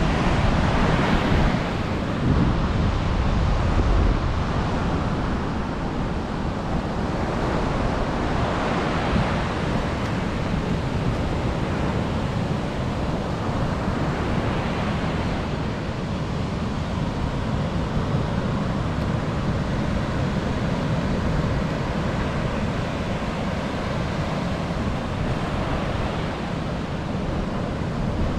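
Ocean surf breaking on the shore in a steady wash that swells and eases every few seconds, with wind buffeting the microphone.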